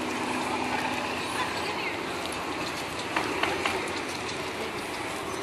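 Steady outdoor din of a large crowd, with faint murmur of voices and a few short clicks a little past the middle.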